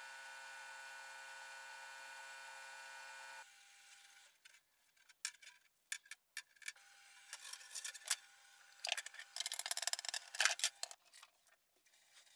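Copper pipe being bent by hand over a pipe-bending spring: scattered clicks, scrapes and rubbing as the pipe is worked and the spring drawn out. A faint steady hum for the first few seconds cuts off suddenly.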